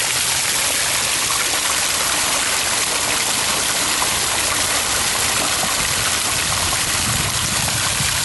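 Fountain jets splashing into a stone-rimmed pool: a steady, unbroken rush of falling water.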